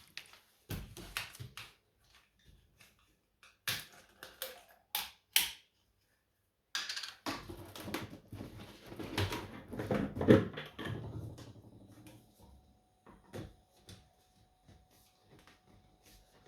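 Objects being handled in a small room: scattered clicks and knocks, then about halfway through a denser stretch of clattering and rustling for several seconds.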